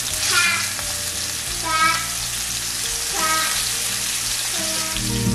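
Seasoned chops sizzling in a hot stainless steel skillet as a second one is laid in: a steady frying hiss. Background music gets louder near the end.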